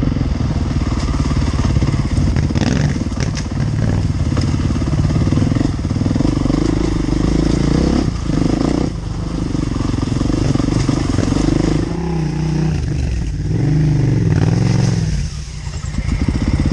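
Enduro motorcycle engine running on trail, its pitch rising and falling as the throttle is worked, with a brief drop in the engine note near the end.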